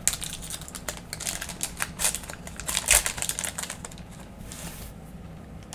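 Plastic wrapper of a trading-card bonus pack crinkling and being torn open: a quick run of crackles, the loudest about three seconds in, and a short rip near the end.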